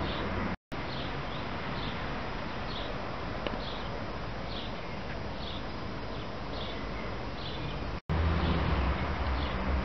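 Outdoor background hiss and low rumble with a faint short chirp repeating about every two-thirds of a second. The sound cuts out briefly twice, about half a second in and near the end.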